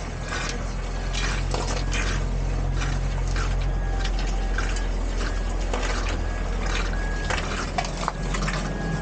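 Water spraying and splashing from a burst water pipe, a continuous rush with many small splashes, over a steady low hum.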